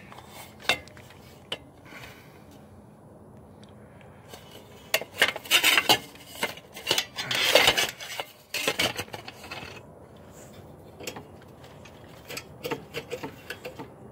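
Rusty metal parts being handled: scattered light clicks and clinks, with two longer rasping scrapes around the middle that are the loudest part.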